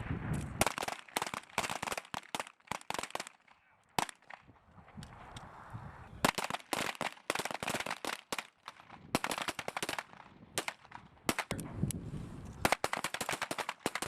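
Pistol gunfire on a firing range: many sharp shots in quick, irregular strings, some overlapping, with a short lull a few seconds in.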